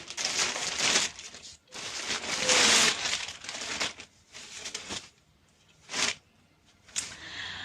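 Gift wrapping crinkling and rustling as it is handled and opened, in irregular bursts that are loudest about two to three seconds in, with a few short rustles near the end.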